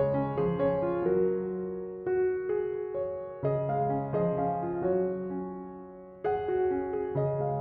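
Gentle piano music: chords and melody notes struck and left to ring, a new chord about every second or so.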